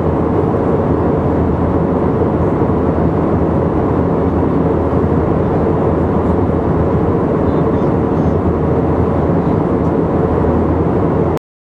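Steady airliner cabin noise in flight: a dense, even roar of engines and airflow with a steady hum, cutting off abruptly near the end.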